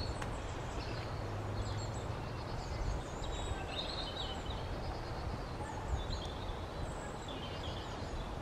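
Small woodland birds calling in the background: scattered short, high chirps and trills over a low steady rumble.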